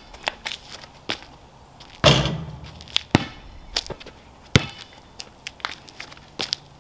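Basketball bouncing on a concrete driveway in a string of sharp single thuds, with a louder clang about two seconds in as a missed shot hits the hoop and rings briefly.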